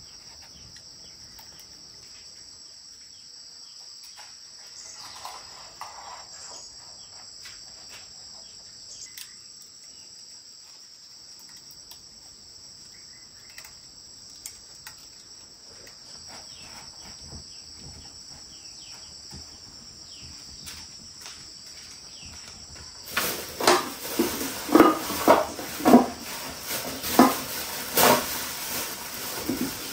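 Crickets or other insects chirring steadily, with a few faint clicks. About three-quarters of the way in this gives way abruptly to a run of loud, sharp knocks and clatter, about two or three a second, like pots, dishes or utensils being handled.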